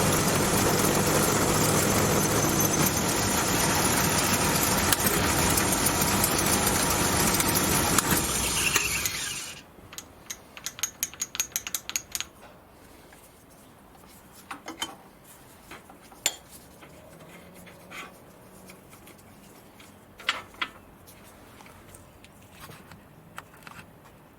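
Homemade Gingery milling machine running loud and steady as it cuts a small aluminium jaw piece. It shuts off about nine and a half seconds in, and light metallic clicks and taps of handling follow.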